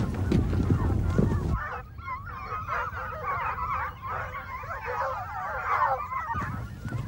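A pack of foxhounds in full cry, many overlapping baying voices wavering up and down in pitch. For the first second and a half they are buried under a heavy low rumble and knocks. They then come through clear and distant, until the rumble returns near the end.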